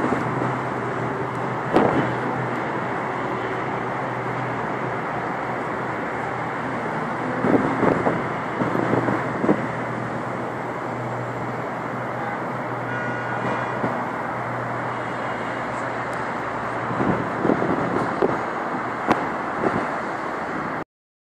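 City street traffic: a steady wash of road noise with a low hum underneath, rising briefly a few times, and cutting off suddenly just before the end.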